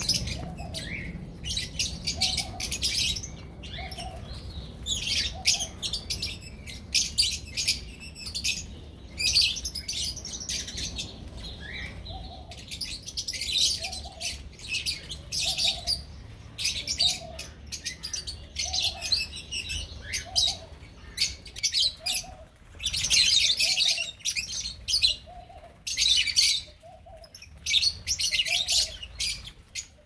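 A colony of lovebirds chirping and chattering: many shrill, rapid calls overlapping in bursts, louder at times.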